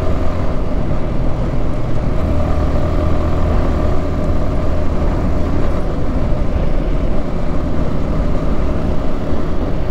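Yamaha R15M motorcycle's 155 cc single-cylinder engine running at a steady pace while the bike is ridden, a continuous drone with road and wind noise and no rise or fall in revs.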